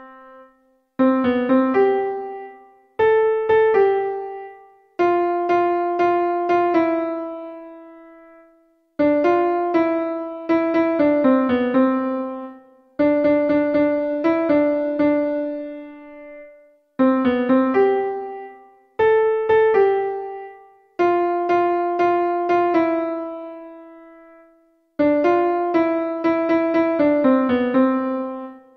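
Piano playing the simple melody of a children's song one note at a time, in short phrases with brief pauses between them, without singing.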